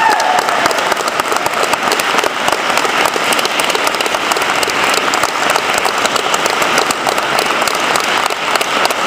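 Audience applauding: many people clapping steadily, a dense continuous patter of claps that holds through the whole stretch.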